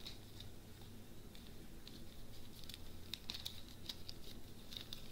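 Small plastic zip-lock bags of diamond-painting rhinestones being picked up and handled, giving faint, scattered plastic crinkles and ticks as the loose stones shift inside.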